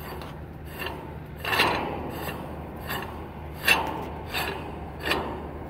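A metal rail car adapter spun by hand onto its threaded fitting, metal scraping on metal in about six short strokes as it turns. The loudest strokes come about a second and a half in and near four seconds.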